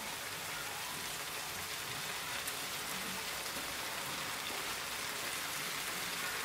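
Onion and mustard sauce sizzling steadily in a frying pan, an even hiss with no break.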